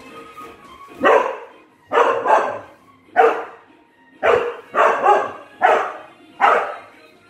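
Dog barking about nine times, starting about a second in, some barks single and some in quick pairs.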